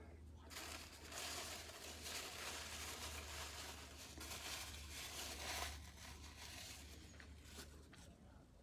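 Aluminium foil takeaway tray crinkling and rustling as food is picked from it by hand, a continuous crinkle for about five seconds that stops before the end, over a steady low hum.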